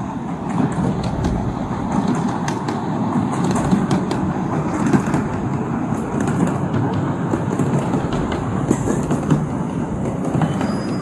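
Miniature ride-on train running along its small-gauge track, a steady rolling rumble with scattered light clicks.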